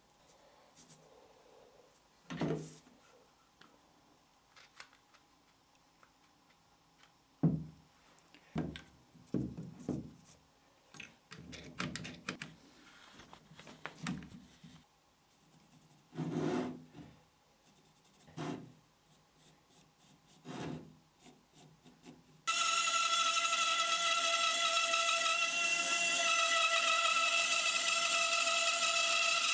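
Laminated wooden blocks and bar clamps handled on a bench: scattered knocks and rubs of wood on wood. About 22 seconds in, a band saw starts abruptly and runs steadily with a constant whine.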